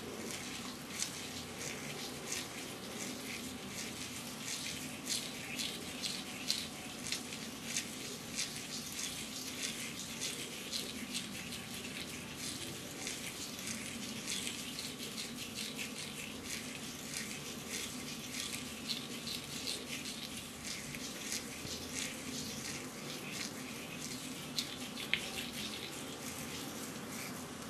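Faint, irregular crackling of wet hair coated in a conditioning mask as it is combed through a section at a time, over a faint steady hum.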